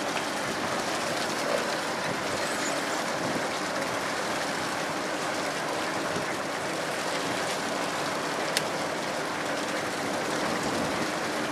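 Tug's engine running steadily: an even rushing noise with a faint low hum beneath it, and one sharp click about eight and a half seconds in.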